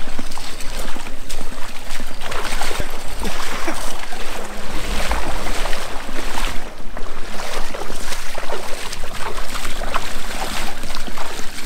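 Footsteps wading and splashing through shallow, muddy water, with an irregular run of sloshes.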